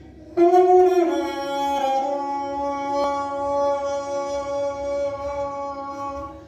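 Homemade horn made from a PET plastic bottle, blown like a trumpet: a short note, then a step down to a lower note held steady for about five seconds, stopping shortly before the end.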